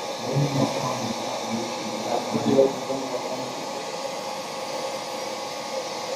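Steady rushing hum of the robot arm's vacuum suction gripper system, with people talking faintly in the first half.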